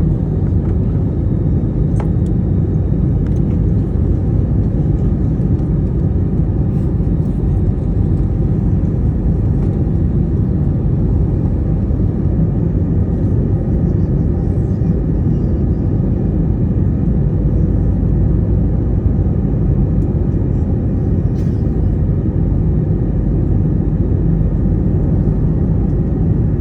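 Airbus A321 airliner making a steady low rumble as it lands.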